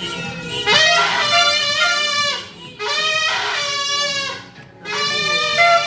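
Horns blown in three long, buzzy held blasts, each starting with a short slide in pitch; the New Year noise suggested by "beep beep".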